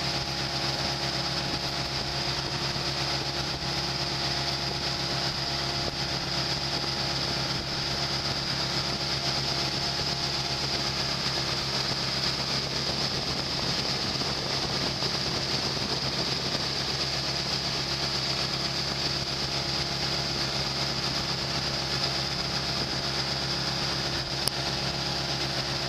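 Engine of a motorised bamboo outrigger boat (bangka) running steadily under way at an even pitch and level.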